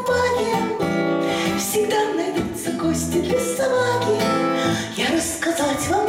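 A woman singing a Russian bard song to a strummed acoustic guitar.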